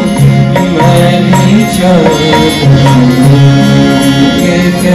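Devotional bhajan sung live by a group of male voices in a held, wavering melody over harmonium, acoustic guitar and electronic keyboard, amplified through microphones and stage speakers.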